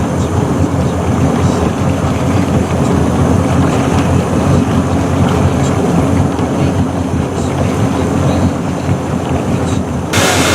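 Boat motor running steadily under way, a low even drone with wind and water noise over it. The sound changes abruptly near the end.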